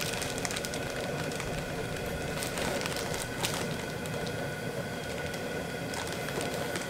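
Clear plastic poultry shrink bag crinkling a few times as a whole plucked chicken is pushed down into it, over a steady background hum.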